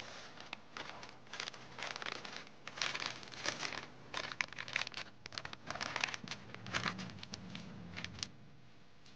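Baking parchment paper crinkling and rustling as it is unfolded, in irregular bursts that stop shortly before the end.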